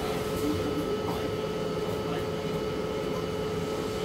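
Steady drone inside a city bus, with a constant hum running under it.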